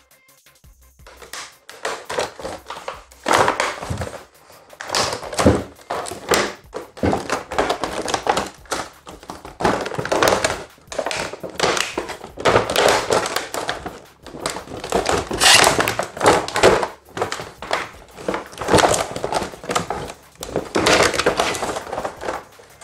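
Stiff clear plastic blister packaging crackling and crinkling as it is cut, bent and pulled apart by hand to free a heavy metal wheel clamp, with the odd dull thunk. The noises come in irregular bursts.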